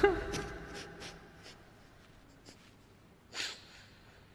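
A man weeping at the microphone between verses of a Quran recitation: faint catches of breath, then a sharp sniffling intake of breath about three seconds in, as he sobs. His last chanted word echoes away in the first second.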